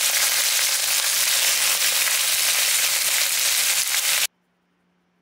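Abalone and whole garlic cloves sizzling in melting butter in a hot frying pan, a steady crackling hiss that cuts off suddenly about four seconds in.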